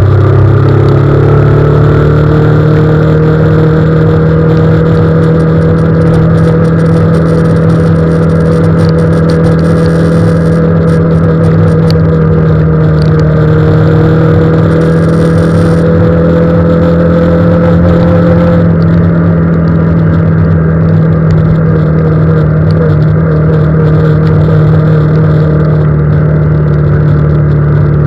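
Vehicle engine running at a steady speed while driving on a wet road at night, its note rising briefly at the start and then holding steady over a rushing noise.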